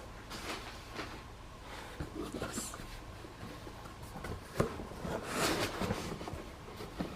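Packaging being handled and unpacked: scattered rustling and light knocks, with a sharp tap about four and a half seconds in followed by a longer rustle.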